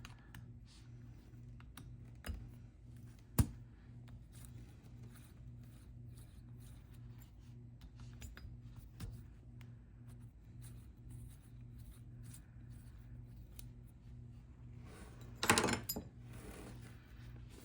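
Parts of a small homemade steel toolmaker's vise being handled and taken apart: faint scraping and light metal clicks, with a sharp click about three seconds in and a louder burst of handling noise near the end. A steady low hum runs underneath.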